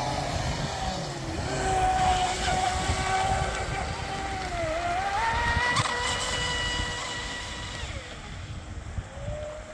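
Electric RC speedboat running flat out, its motor a steady high whine. The pitch dips briefly about halfway through as the boat swings through a turn, then rises again and fades as the boat runs off into the distance.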